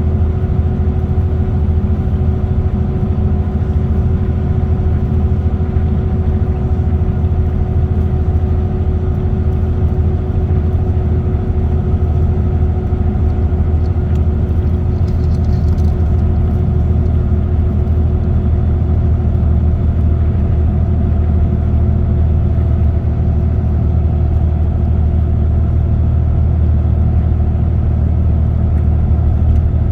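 A car cruising steadily at highway speed: a continuous low rumble of engine and road noise with a steady hum.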